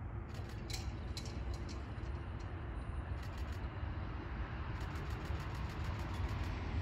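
Low, steady rumble of Queensland Rail's Electric Tilt Train approaching from far off, mixed with wind on the microphone. Several runs of quick sharp ticks come through, the longest an even run of about six a second near the end.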